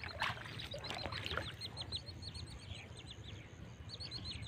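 A bird calling in a quick string of short, falling high chirps, several a second, over a steady low rumble.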